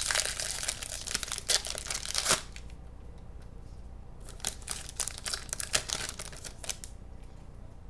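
Trading-card pack wrapper being torn open and crinkled, in two spells of dense crackling with a pause of about two seconds between them.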